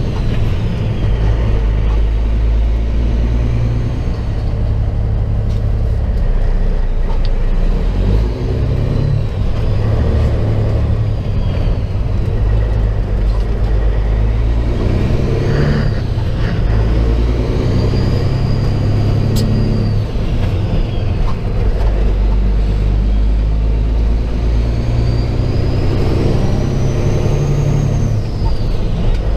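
Semi truck's diesel engine heard from inside the cab, a loud low rumble whose pitch steps up and down as the truck pulls away and changes gear, with a high whistle rising and falling a few times with the throttle.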